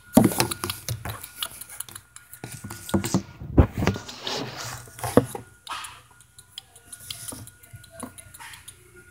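Handling noise from a phone being moved around in the hand: irregular clicks, knocks and rubbing, most of them in the first half.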